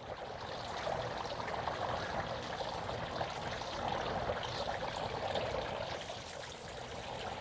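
Steady trickle of running water, an even splashing hiss with no clear pauses.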